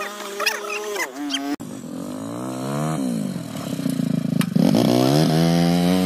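Small motorcycle engine revving under load, its pitch dipping and climbing, then running louder at a steadier high pitch for the last second or so.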